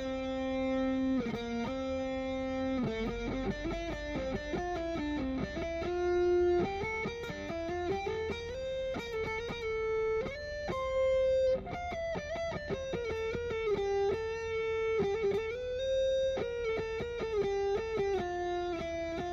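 Electric guitar playing single-note scale runs, picked one note at a time and climbing and falling stepwise in pitch. It is running through linked scale patterns, moving from one position to the next along the neck.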